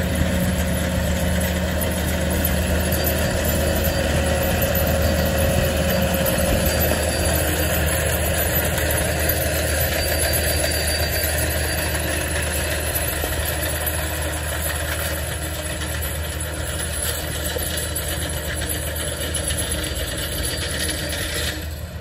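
John Deere tractor's diesel engine running steadily under load as it pulls a roller/crimper through a cereal rye cover crop.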